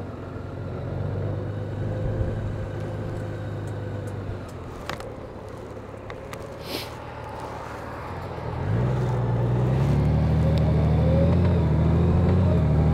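Honda Gold Wing flat-six engine running at low speed, heard from the rider's seat. About two-thirds of the way through it accelerates, growing louder with its pitch rising steadily.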